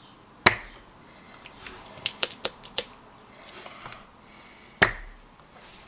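Spring-loaded solder sucker (desoldering pump) firing with a sharp snap about half a second in and again near the end, drawing molten solder off a heated pad; a quick run of four lighter plastic clicks comes in between.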